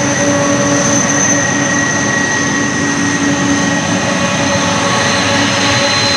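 Twin turbofan engines of a United Boeing 767-300ER running as the jet rolls past: a steady rushing sound with several held whining tones on top.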